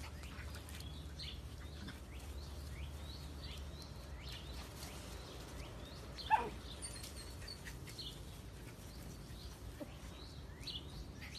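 Small birds chirping in short, high, falling notes over a faint low background hum, with one short yelp that falls in pitch about six seconds in from a miniature dachshund at play.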